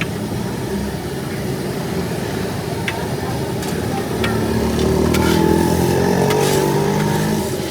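Roadside traffic: a motor vehicle's engine passes close, growing louder and rising in pitch about halfway through, then falling away near the end, over steady street noise with a few sharp clicks.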